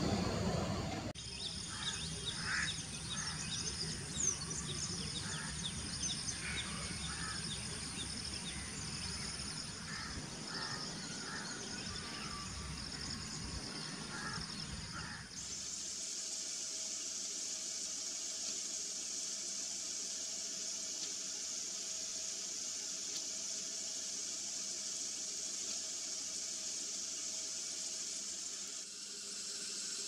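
Outdoor natural ambience of small birds chirping repeatedly over a steady high insect drone. After about fifteen seconds the chirping stops and a steadier, hissing insect chorus takes over.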